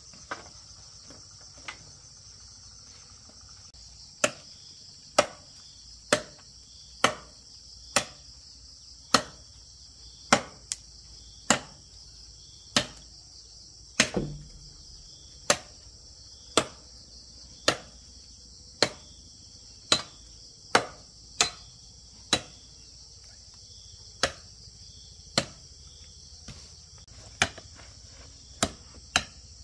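Sharp knocks, about one a second from a few seconds in and coming faster near the end, like a tool chopping or hammering. Behind them runs a steady high insect chorus.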